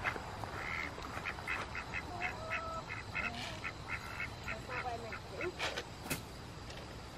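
A flock of chickens calling as food is tossed to them, in a quick run of short, high calls, two or three a second. A sharp click comes about six seconds in.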